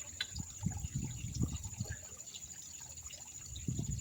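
Pond water trickling and splashing unevenly as it runs through the filter and waterfall, with a faint steady high whine behind it.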